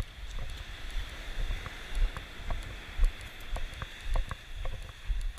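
Footsteps crunching on a sand-and-pebble beach, about two steps a second. Wind buffets the microphone with a low rumble, and surf hisses steadily in the background.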